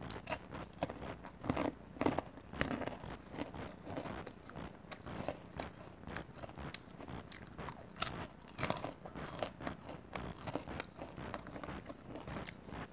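Caramel-coated popcorn being bitten and chewed, with many irregular, crisp crunches.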